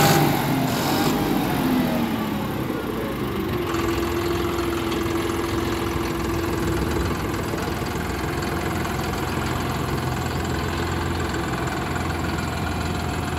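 John Deere 5310 tractor's 57 HP common-rail diesel engine running. Its revs fall away over the first few seconds, then it runs steadily at low speed as the tractor moves off.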